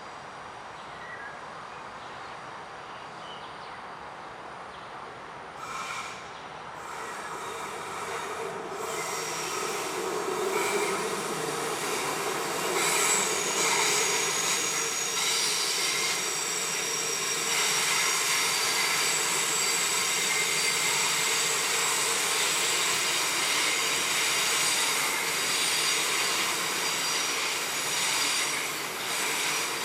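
Train braking as it comes into the station: its sound grows from about six seconds in and turns into a loud, lasting high-pitched brake squeal made of several steady tones.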